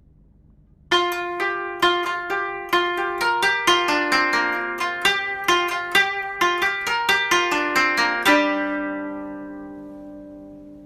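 Background music: about a second in, a melody of quick plucked notes starts, then ends on a held chord that slowly fades out.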